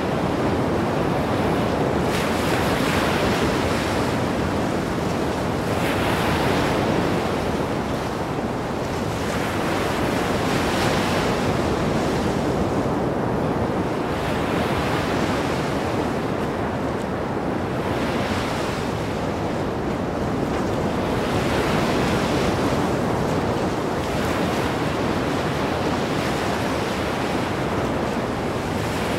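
Ocean surf: waves washing onto a beach in a steady hiss, swelling about every four seconds.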